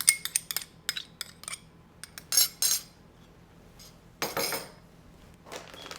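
A metal spoon clinking against a dish in a quick run of taps, then scraping twice.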